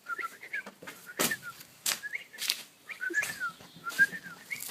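A baby bird's thin, whistle-like peeping calls: short, quickly slurred chirps repeated in little runs, with a few sharp scuffs or clicks among them.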